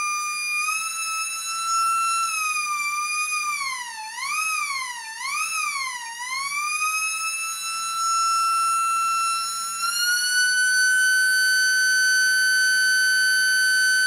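A resin 3D-printed tornado siren, spun by a miniquad brushless motor at 12 volts, wails very loudly on one high tone. Around four to six seconds in, its pitch dips and rises three times as the motor speed wavers. Near ten seconds it climbs a little higher and holds steady.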